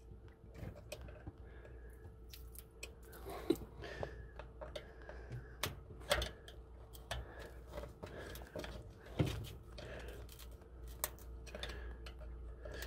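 A screwdriver tip poking and scraping at plastic chicken waterer nipples and the ice at their tips, making scattered small clicks and crunches, under a faint steady hum.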